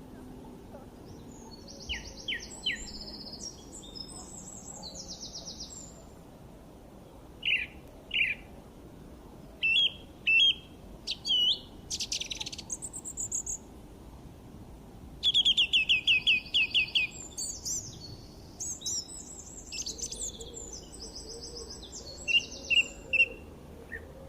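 Songbirds chirping and singing: scattered short high chirps, whistled notes and trills, with a loud, fast run of repeated notes about fifteen seconds in, over a faint steady background hiss.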